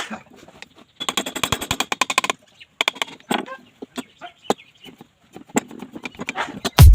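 Hand tools clicking and tapping on metal parts during an engine repair, with a quick run of even clicks about a second in lasting just over a second, then scattered single knocks. Music starts abruptly at the very end.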